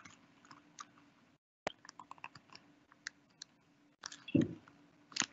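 Faint computer-keyboard typing, irregular clicks over a low steady hum, heard through a video call's audio. It drops out to dead silence for a moment about a second and a half in, and a louder low thump comes about four seconds in.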